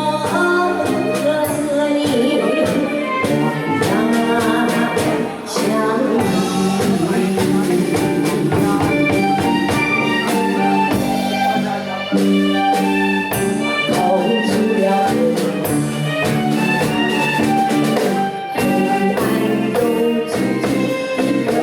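A woman singing with vibrato over a music backing track.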